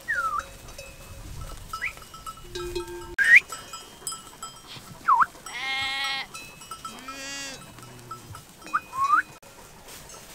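Flock of sheep bleating, with two long bleats about halfway through, over the faint ringing of small bells. Short whistle-like gliding notes come and go throughout.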